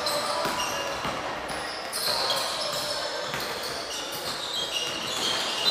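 Basketball game on a hardwood court: the ball bouncing in knocks, with short high sneaker squeaks on the floor.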